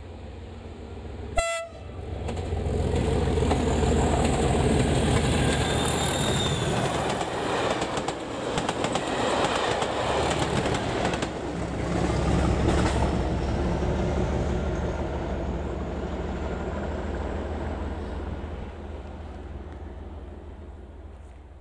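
Class 37 diesel locomotive with its English Electric V12 engine passing at speed on a test train, giving a short, sharp horn blast about a second in. It then passes close by, engine and wheels loud with a rhythmic clatter over the rail joints, and fades away near the end.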